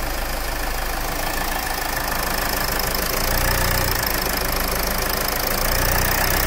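Land Rover diesel engine idling steadily, running after a repair to its engine control module, which had not been sending current to the injectors.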